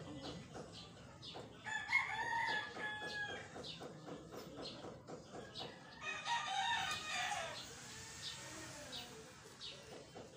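A rooster crowing twice, each crow a long drawn-out call of a second or more, the first about two seconds in and the second about six seconds in.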